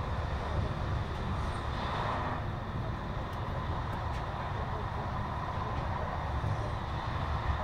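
Regional TER passenger train running at speed, heard from inside the carriage: a steady low rumble of the wheels on the rails, with a faint steady hum and a few faint ticks.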